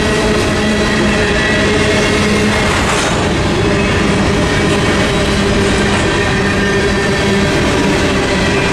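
Freight train's covered hopper cars rolling past at a steady speed, with a loud, even rumble of wheels and a clickety-clack over the rail joints.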